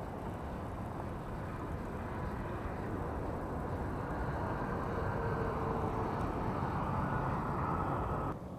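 Steady low rumbling noise like a motor vehicle running, growing slightly louder, with faint tones over it in the second half; it cuts off abruptly near the end.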